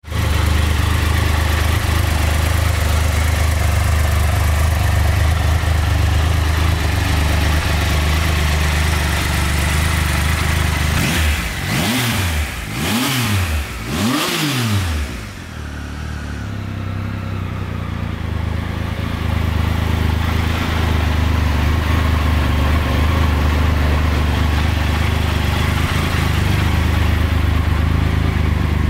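Triumph Tiger 1200 XRX's three-cylinder engine idling steadily, blipped three times in quick succession a little before halfway through, each rev climbing a little higher before dropping back to idle.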